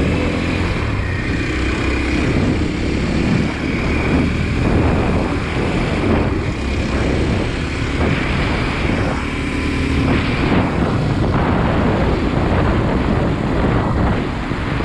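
Dual-sport motorcycle engine running steadily while riding on a paved road, with wind noise on the microphone.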